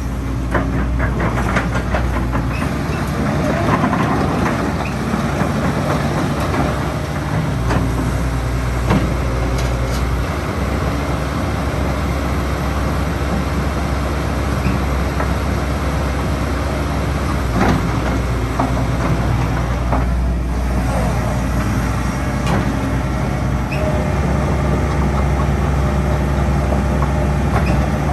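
Hitachi ZX130L-3 hydraulic excavator running, a steady low diesel drone that shifts in level several times, with a few sharp knocks and clanks.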